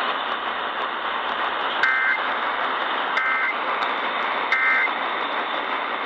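Three short EAS end-of-message data bursts (the digital SAME tones that close an alert), a little over a second apart, over steady static hiss from a portable Eton radio's speaker.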